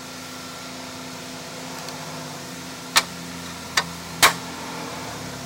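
Three sharp clicks of small metal parts being handled, one about three seconds in and two close together a second later, the last the loudest, over a steady mechanical hum.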